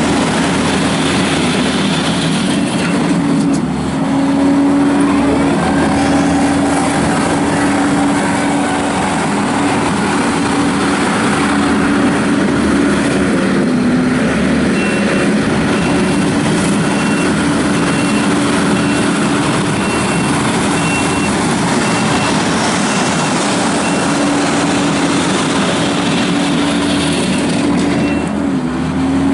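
Kubota SVL75-2 compact track loader's diesel engine running hard at steady revs, dipping briefly in pitch about halfway through and again near the end. From about halfway, its backup alarm beeps steadily, a little more than once a second.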